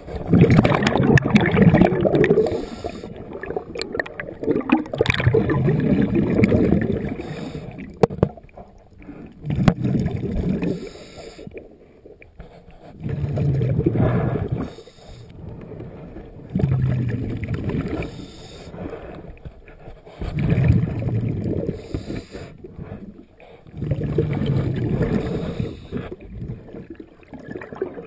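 Scuba diver's regulator breathing underwater: a rumbling gush of exhaled bubbles about every three to four seconds, with quieter inhales between.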